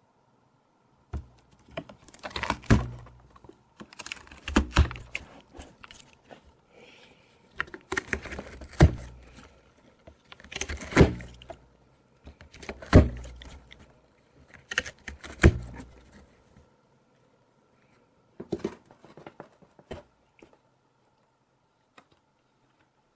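Cat biting and tearing corrugated cardboard with its teeth: bursts of crackling and ripping, each a second or two long, coming about every two seconds and dying away near the end.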